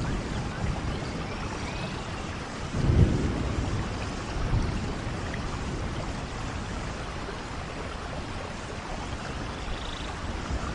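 Steady rain falling, with low rumbles of thunder: a strong one swelling about three seconds in and a smaller one a moment later.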